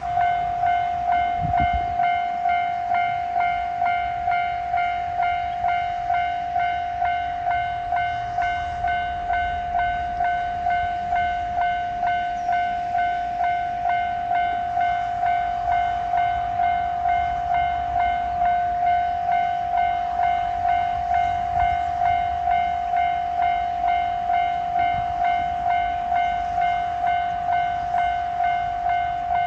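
Japanese railway level-crossing warning bell ringing: a steady, even 'kan-kan' of the same high note, about one and a half strikes a second, signalling that a train is approaching.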